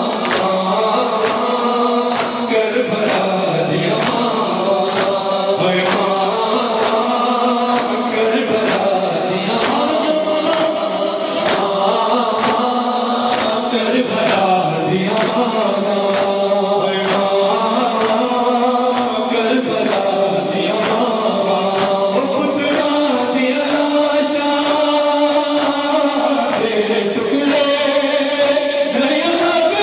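Noha recitation: voices chanting a mournful lament together in a steady melody. Sharp beats keep time about three every two seconds, the chest-beating (matam) that accompanies a noha.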